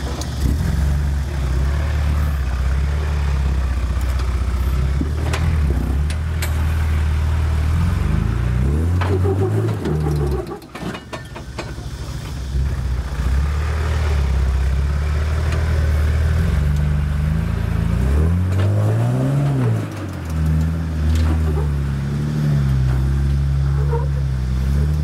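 Toyota LandCruiser 80 Series engine working under load as it crawls up a rock step. It runs steadily, revs up and back down twice, and drops briefly in between. A few sharp knocks come through over the engine.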